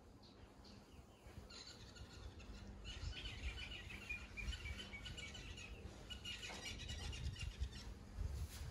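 Birds chirping and twittering, starting about a second and a half in and fading near the end, over a low rumble.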